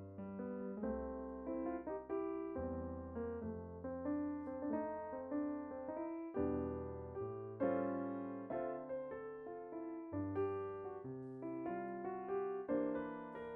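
Background piano music: a gentle run of notes and chords, each struck and left to fade.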